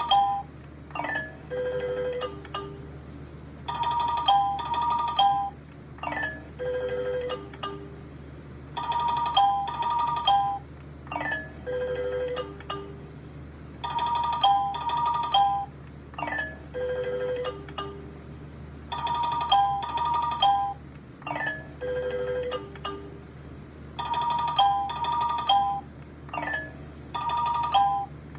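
Red Rocket's chime sound effect: a bright electronic jingle of ringing bell-like notes, a short falling note and a lower two-note tag. It repeats as a loop about every five seconds, over a steady low hum.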